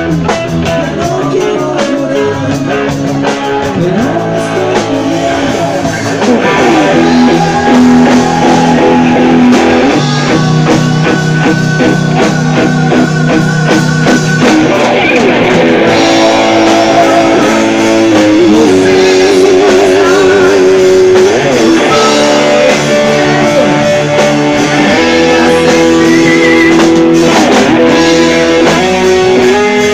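Live rock band playing loudly: electric guitar over a drum kit, the band getting louder about six seconds in.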